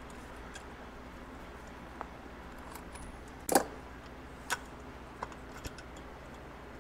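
A few short metallic clinks and taps from a homemade case-splitter puller being handled on a motorcycle engine crankcase, the loudest about three and a half seconds in, over a steady low hum.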